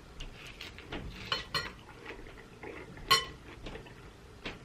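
Cutlery clicking and scraping against a dish during eating, with one brighter ringing clink about three seconds in.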